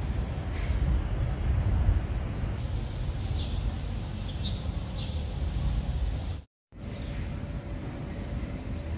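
Background ambience: a steady low rumble with small birds chirping now and then, high-pitched and brief. The sound cuts out to silence for a moment about six and a half seconds in, then the same ambience resumes.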